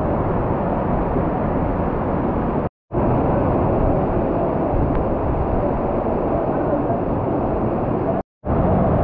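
Strong wind blowing across the microphone: a loud, steady, deep rushing noise that cuts out completely twice for a moment.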